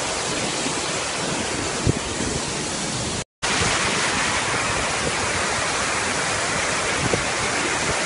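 Steady rush of the Kuang Si Falls cascade, close on a small camera's microphone. A split-second gap about three seconds in, then the rush resumes slightly brighter.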